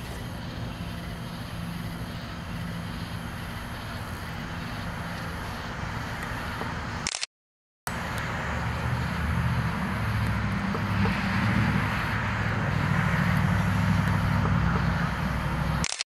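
Steady low background hum and hiss, like distant traffic or machinery. It breaks off into silence for about half a second a little after seven seconds in, then resumes a little louder.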